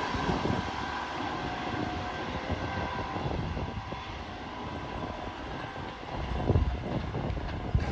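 Double-deck electric passenger train running away down the line, its rumble and a faint steady whine fading into the distance. A brief low rumble comes near the end.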